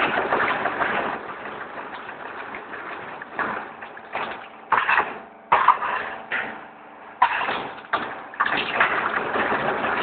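Hollow-profile roll-forming machine for gypsum ceiling frames running with a dense mechanical clatter. In the second half the noise comes in several sudden loud surges that each die away.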